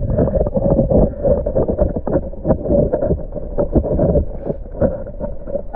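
Mountain stream heard from a camera held underwater: a muffled, steady rush of flowing water full of irregular gurgles and quick knocks, starting abruptly.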